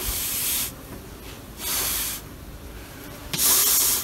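Bee smoker's bellows squeezed three times, each puff a short hiss of air about half a second long, roughly a second and a half apart.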